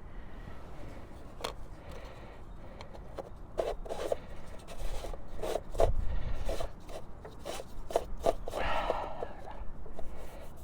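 Hand-handling noise from distributor parts being worked on: scattered light clicks and knocks with rubbing and rustling in between, busiest through the middle.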